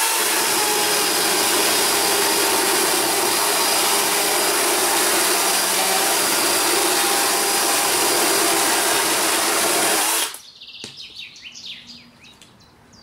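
Electric saw running steadily as it cuts about 5 cm off a dry wooden aquarium root. It stops abruptly about ten seconds in, as the cut is finished.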